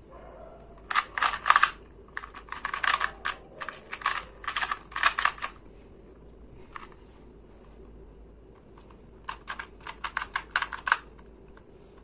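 Moyu Meilong 2×2 speed cube being turned fast during a timed solve: rapid plastic clicking in quick bursts for about four seconds, then, after a pause, a second shorter burst of fast turns about nine seconds in.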